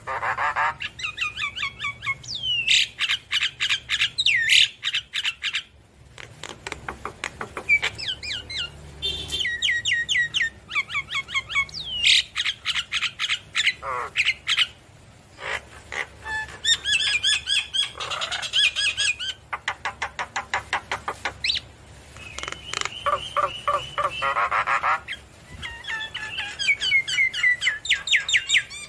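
Javan myna singing a long, varied song: fast chattering runs of clicking notes mixed with harsh squawks and whistled notes, in bursts broken by short pauses.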